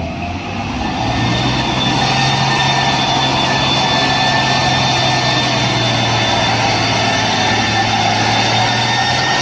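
Toy tanker truck giving out a steady, loud engine-like running sound, a low hum with a thin high whine over it.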